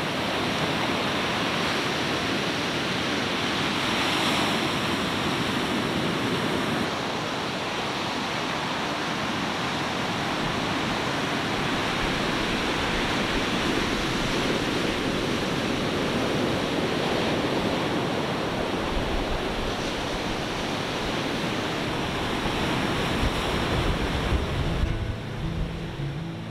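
Ocean surf breaking and washing up over a pebble beach in a steady, swelling rush of water, with wind buffeting the microphone now and then in the later part.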